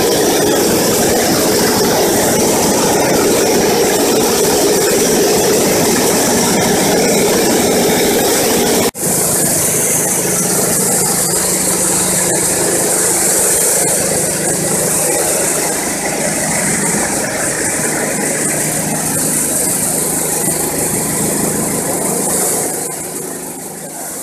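Coffee bean sieving machine running: its motor and shaking sieve screens going steadily, with green coffee beans rattling over the mesh and pouring into sacks. The sound cuts out for an instant about nine seconds in, then goes on with more hiss.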